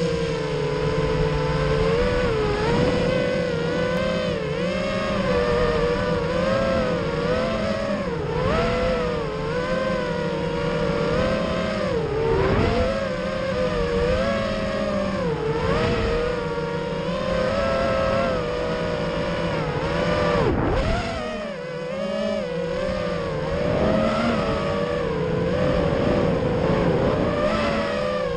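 Racing quadcopter's electric motors and propellers whining, heard from on board, the pitch rising and falling constantly with the throttle. About twenty seconds in, the pitch sweeps up, then drops and the sound eases briefly before it climbs again.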